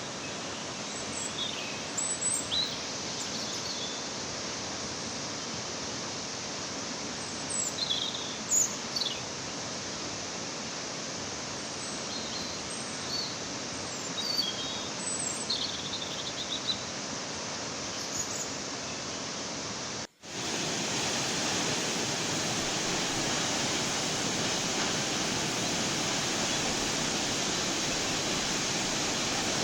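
Steady rush of falling water from a waterfall, with birds chirping now and then over the first two-thirds. About two-thirds of the way through the sound cuts out for an instant, and the rush comes back louder and without the birds.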